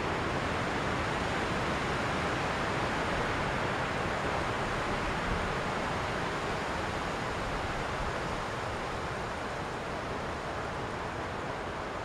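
Strong wind rushing steadily through pine and leafy trees, with gusts buffeting the microphone as a low rumble; it eases a little near the end.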